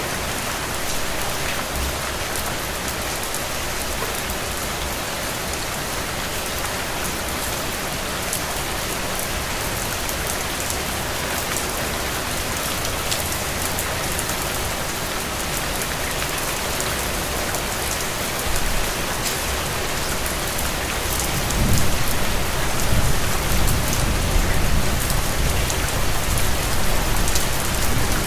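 Steady rain falling, a dense even hiss with fine drop ticks. About three quarters of the way in, a low rumble swells up beneath it and the rain gets a little louder.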